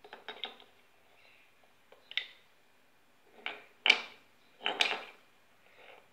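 Metal fittings of a PCP air-gun fill adapter, a knurled black body and a brass connector, clinking and knocking as they are picked up and set down on a concrete floor: a quick cluster of clicks at the start, then several sharper knocks, the loudest about four seconds in.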